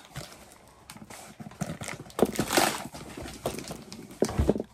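Plastic bag crinkling and a boxed figure knocking and scraping against a cardboard shipping carton as it is pulled out. Irregular rustles and knocks, loudest about two and a half seconds in, with another cluster of knocks near the end.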